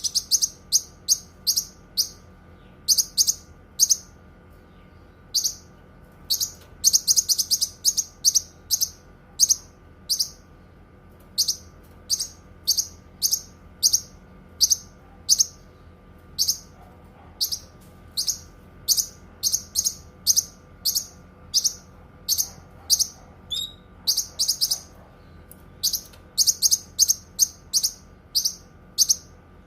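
A cucak kinoi singing: short, high, sharp chirps repeated one to a few a second, now and then run together into quick rattling series.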